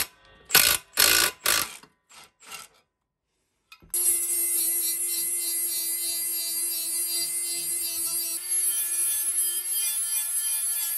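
Milwaukee 12V cordless impact tool hammering in four short bursts as it undoes the mower's blade bolts. After a brief pause, a Milwaukee 12V cordless 90-degree grinder starts at about four seconds and runs steadily with a high whine, grinding the rusty swing-back mower blades.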